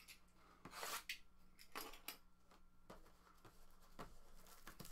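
Near silence, with a few faint, brief rustles and soft taps from handling trading cards and their packs.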